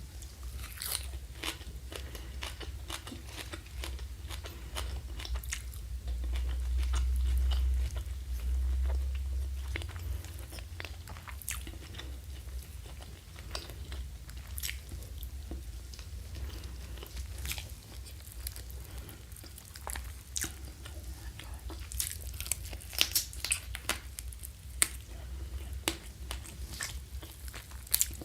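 Close-miked eating: a person biting and chewing crunchy food, with many crisp crunches and clicks that come thickest near the end. A low rumble underneath swells between about six and ten seconds in.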